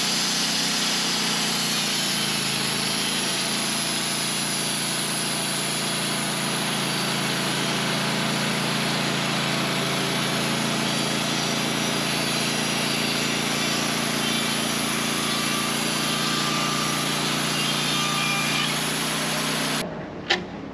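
Sawmill engine running at a steady pitch, then cutting off abruptly near the end, followed by a single sharp click.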